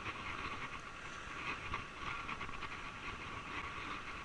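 Spinning reel being cranked to retrieve a lure, its gears making a rapid, uneven chatter over the wash of surf on the rocks.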